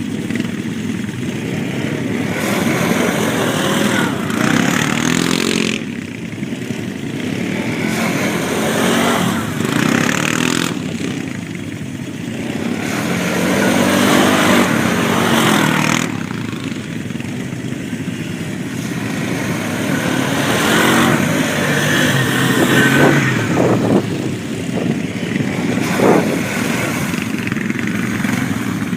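ATV (quad bike) engines running and revving, rising and falling in pitch as they accelerate and ease off, with louder swells every few seconds.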